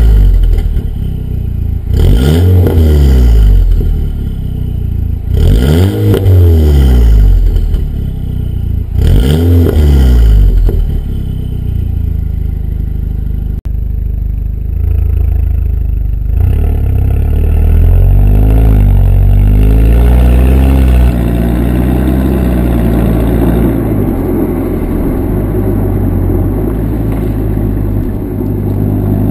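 Exhaust of a Volkswagen Golf VI R's 2.0-litre turbocharged four-cylinder, fitted with a 200-cell metal-catalyst downpipe, a straight centre pipe and the stock rear silencer. It is blipped four times while standing, each rev rising and dropping back. Then, with the car under way, the engine climbs through the revs and settles into a steady run.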